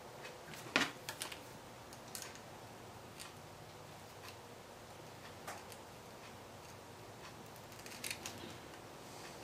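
Small clicks and ticks of hands handling a computer power supply's wires and plastic plug connectors, the sharpest about a second in and a few more near the end.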